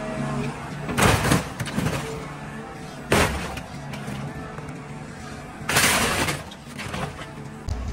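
Excavator bucket crushing a scrapped pickup truck: loud crunching and breaking crashes about a second in, about three seconds in and near six seconds, over the steady hum of the excavator's diesel engine.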